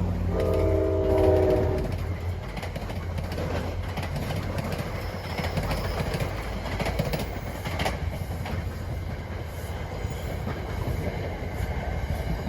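NJ Transit diesel commuter train passing: its horn sounds a short chord about a second in. Then the train rolls by with a steady diesel rumble and wheels clicking over the rail joints.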